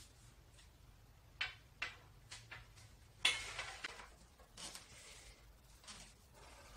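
Movement sounds of solo sword practice on a wooden floor: four sharp taps in quick succession, then a louder rushing noise about halfway through and two weaker ones after it.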